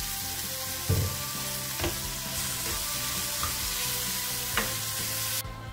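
Chopped tomatoes and onion masala sizzling in hot oil in a frying pan while a spatula stirs them, with a few sharp knocks of the spatula against the pan. The sizzle cuts off just before the end.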